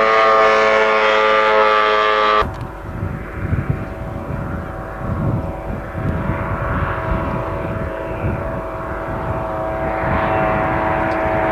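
Racing powerboat's outboard engine at full throttle, a loud steady high-pitched drone. About two and a half seconds in it cuts off abruptly to a more distant boat engine under a low rumble of wind on the microphone, the engine growing louder near the end as the boat comes closer.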